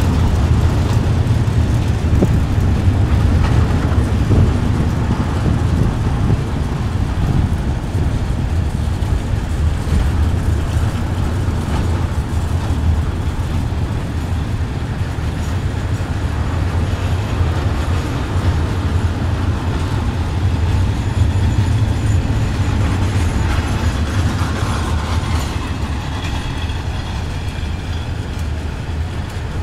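Long freight train of covered wagons rolling past close by. Its wheels on the rails make a steady low rumble that eases slightly near the end.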